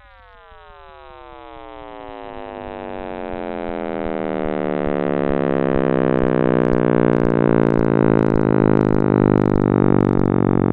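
Synthesized sonification of the Big Bang's sound, built from cosmic radiation data: a dense stack of tones gliding steadily down in pitch while growing louder, then settling into a deep, steady hum.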